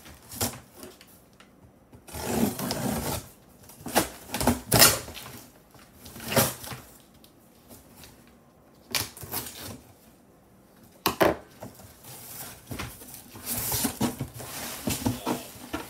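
A cardboard shipping box being opened by hand, its flaps pulled and torn open with rough scraping and rustling of cardboard, and several sharp knocks as the box is handled.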